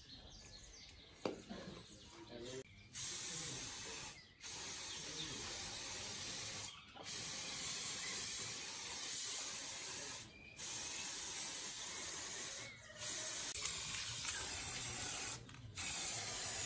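Pressurised spray hissing in about six long bursts of two to three seconds each, with a brief break between bursts, starting about three seconds in.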